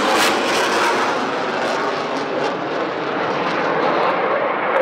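F-22A Raptor's twin jet engines running on the runway: a loud, steady jet noise, whose highest hiss thins out a little about three to four seconds in.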